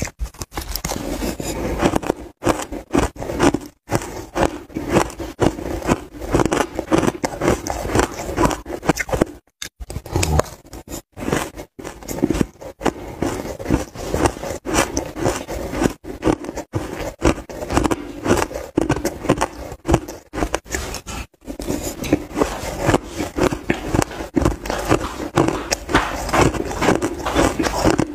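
Mouthfuls of dry shaved ice being crunched and chewed close to the microphone: a dense, continuous run of crisp crunches that breaks off for a moment three times.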